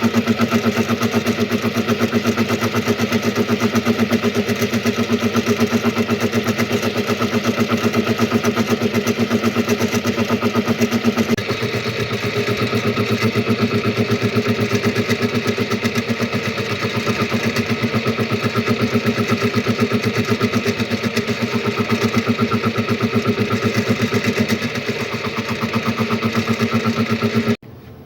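Machine cutting a metal gear. The motor runs steadily under load with a fast, even pulsing, and the tone shifts slightly partway through. It cuts off abruptly near the end.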